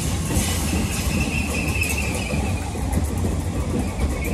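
Merseyrail electric multiple-unit train running past along the platform: a steady rumble of wheels on the rails. A thin high wheel squeal comes in about half a second in and fades after a couple of seconds.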